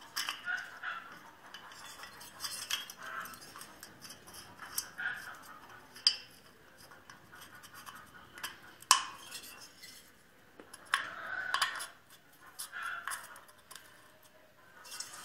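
Metal engine parts and hand tools clinking and clattering as they are handled during small-engine reassembly, with two sharp metal knocks about 6 and 9 seconds in.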